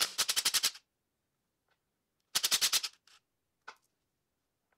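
Cordless impact driver undoing bolts on an engine's cylinder head: two short bursts of rapid hammering clacks, one at the start and one about two and a half seconds in, followed by a few single clicks.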